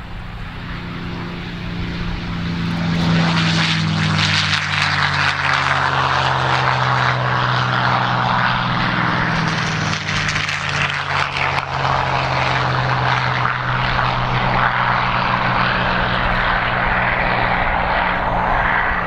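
CAC CA-18 Mustang's Packard Merlin V-12 engine at takeoff power as the fighter lifts off and climbs away. The sound swells over the first three seconds, and the engine note drops in pitch as the aircraft passes, then stays loud and steady.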